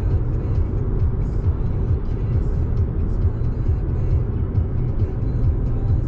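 Steady low road and engine rumble inside a Fiat's cabin at motorway speed, with music in the background.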